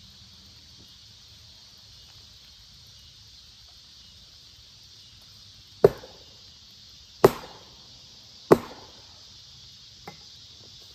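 Three sharp blows struck on the log, a little over a second apart, then a faint tap about a second and a half later, over a steady chirring of insects.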